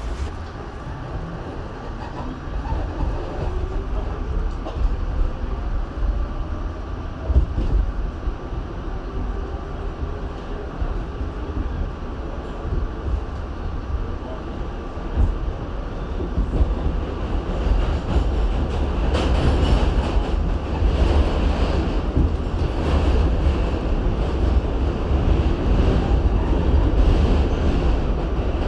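R68 New York City subway train running, with a motor whine that rises in pitch in the first several seconds as it picks up speed. From about two-thirds of the way through, the wheel and track clatter grows louder.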